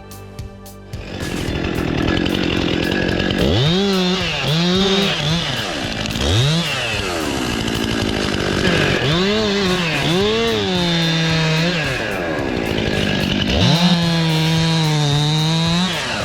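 Chainsaw engine running, starting about a second in. It revs up and drops back again and again, then is held at high revs near the end.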